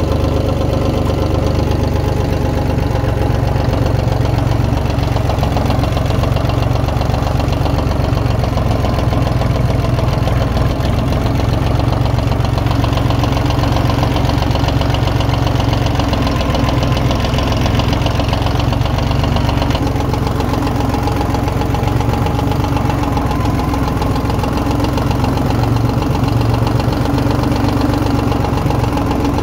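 Ford 1910 compact tractor's three-cylinder diesel engine running steadily, heard close up from the driver's seat.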